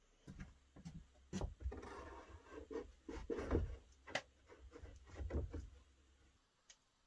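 Objects being set down and slid on wooden shelving: a run of light knocks and scraping on wood that stops after about six seconds.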